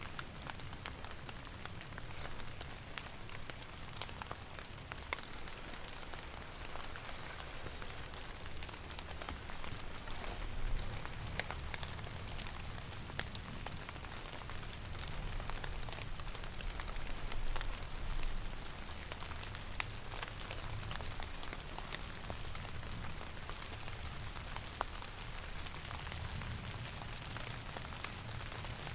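Steady rain falling, with many scattered sharp drop ticks, over a low steady rumble.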